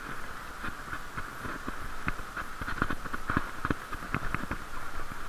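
Bicycle ride over brick paving heard through a waterproof camera case: a steady hiss with irregular knocks and ticks, several a second, from the bike and camera jolting over the bricks.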